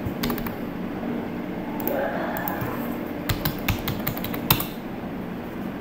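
Computer keyboard being typed on, its keys clicking in short irregular runs, over a steady low hum.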